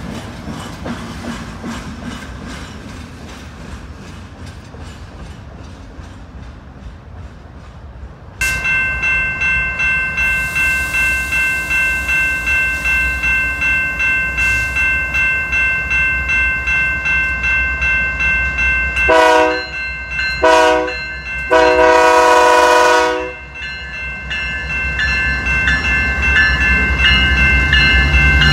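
A passing train's rumble and wheel clicks fade, then about 8 seconds in a warning bell starts ringing steadily, about twice a second. An approaching locomotive's air horn then sounds three blasts, long, short, long, and its low rumble grows louder near the end with the bell still ringing.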